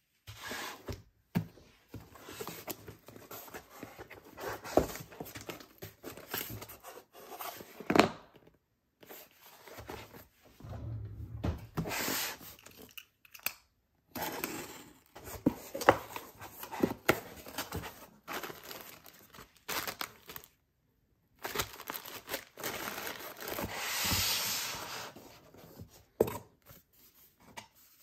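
A cardboard shipping box being opened by hand. A small handheld box cutter slices along the packing tape and the tape tears, with irregular taps and knocks on the cardboard. A longer stretch of tearing and crinkling comes near the end as the flaps open and the packing material is handled.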